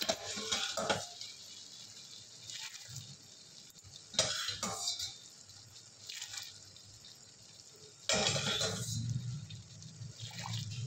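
Jaggery syrup poured through a metal strainer into a pan of hot roasted semolina, liquid splashing in a few bursts. The longest and loudest pour comes near the end.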